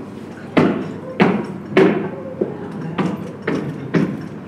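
Brazilian three-banded armadillo rolled up into a ball, its shell knocking on the floor under the sawdust: a run of sharp thumps, a little under two a second, one of them weaker than the rest.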